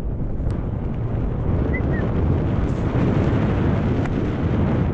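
Wind rumbling over the camera microphone as a mountain bike rolls fast down a wet dirt singletrack, with a couple of sharp clicks from the bike and a brief high chirp about two seconds in.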